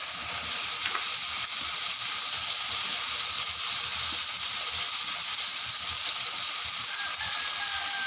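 Pieces of country chicken frying in hot oil and spiced masala in a pan: a steady sizzle with light stirring, as the meat is browned (kosha) in the masala.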